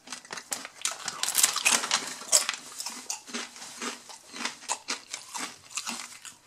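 Crinkling of a foil potato-chip bag as it is handled and set down, mixed with the crunch of cauldron-cooked potato chips being chewed. The crackling is densest and loudest in the first half, then thins to scattered crunches.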